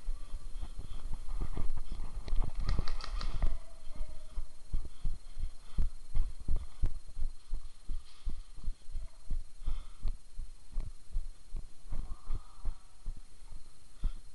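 Dull, uneven thuds about two a second: the footsteps of a player moving through an indoor airsoft arena, heard through a body-worn camera. About three seconds in there is a short cluster of sharper clicks.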